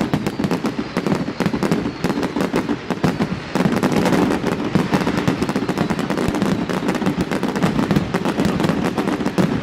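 Fireworks going off in an unbroken run of rapid crackling bangs, many a second, with the bangs getting a little louder and denser about a third of the way through.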